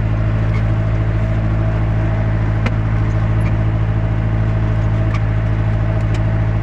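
Excavator engine running steadily with a constant low drone, heard from inside the operator's cab.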